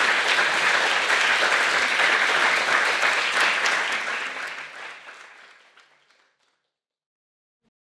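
Audience applauding, the clapping fading away from about four seconds in.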